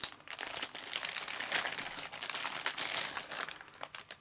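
Packaging being unwrapped and opened by hand: a dense crinkling rustle with many small crackles, easing off near the end.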